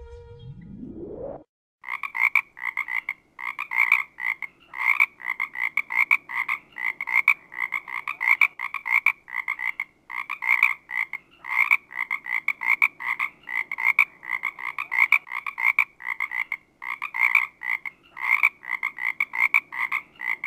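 A short rising glide in pitch, then a frog croaking over and over: rapid rasping pulses in quick clusters with short pauses between them.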